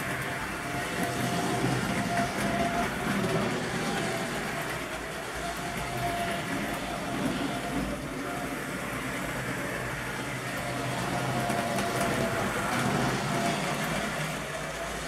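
Model railway locomotives running on their track: a steady mechanical rumble of small electric motors and wheels on the rails, with a faint thin whine that comes and goes.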